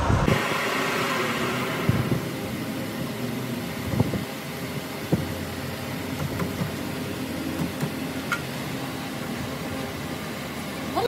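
Metal lathe running with a steady mechanical drone, with a few short knocks about 2, 4 and 5 seconds in.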